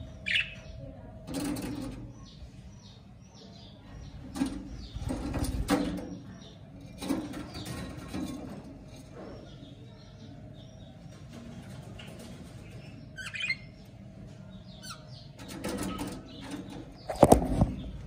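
Budgerigars chirping and chattering softly, with several short bursts of wing-flapping as birds flutter about; the loudest flutter comes near the end. A faint steady hum lies underneath.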